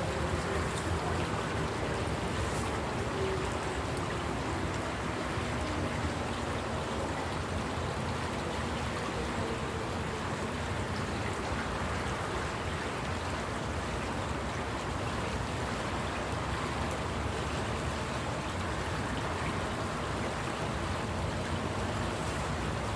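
Distant electric motor fire sirens winding down: faint falling tones in the first few seconds, then a steady rushing noise.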